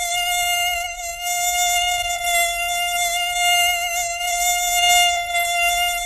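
Mosquito buzz: a steady, high-pitched whine of wingbeats that holds one pitch with only slight wavering and does not break.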